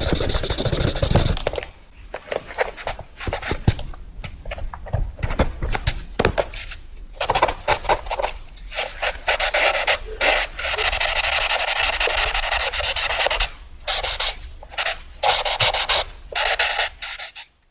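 Rapid drawing strokes scratching across paper, coming in quick runs broken by short pauses, with one longer unbroken stretch of scribbling in the middle.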